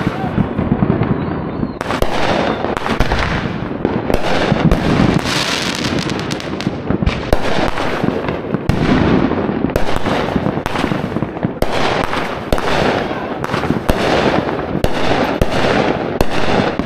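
A continuous barrage of consumer aerial fireworks launching and bursting: sharp bangs and pops, several a second, overlapping with no let-up over a low rumble.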